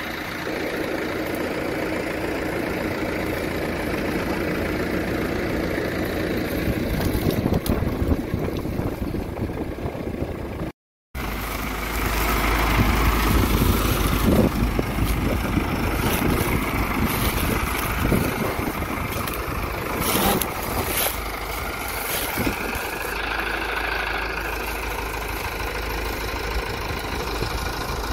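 Iseki tractor's diesel engine running steadily while it tows a sugarcane truck stuck in mud. The sound drops out briefly about eleven seconds in and returns louder, with scattered knocks and clanks.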